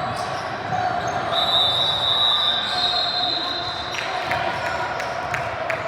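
Basketball bouncing on a gym court, with a run of sharp knocks in the second half over a steady murmur of voices. A high held squeal lasts about two and a half seconds in the middle.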